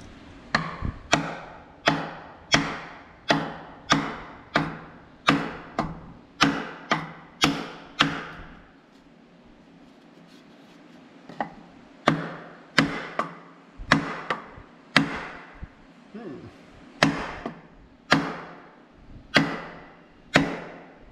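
Sledgehammer striking a 2x4 block held against a tractor's exhaust manifold, wood knocks about one and a half a second, to drive the force-fit manifold off. The strikes stop for a few seconds about eight seconds in, then start again.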